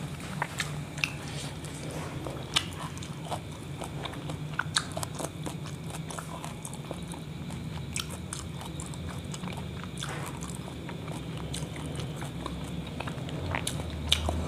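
Close-up chewing of a mouthful of saucy kebab wrap, with irregular small wet clicks and smacks of the mouth. A steady low hum runs underneath.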